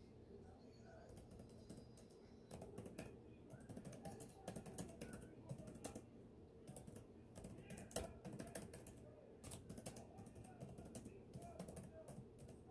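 Typing on a computer keyboard: quiet, irregular bursts of keystrokes with short pauses between, one sharper key strike about two-thirds of the way through.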